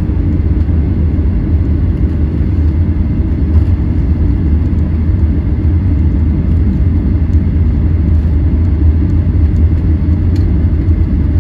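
Steady low rumble inside the cabin of a Boeing 737-900ER taxiing after landing, its CFM56 engines at idle.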